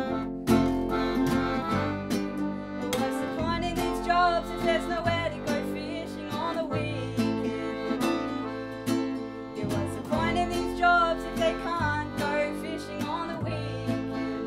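Folk trio playing an instrumental passage: piano accordion, strummed cittern and plucked double bass together, with a steady strumming pulse and a bass note changing about every second.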